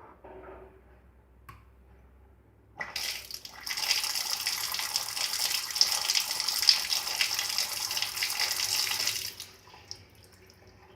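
Water running in a strong stream, switched on about three seconds in and cut off about six and a half seconds later.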